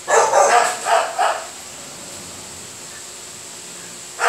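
Puppy barking: three short barks in the first second and a half, then another bark starting just before the end.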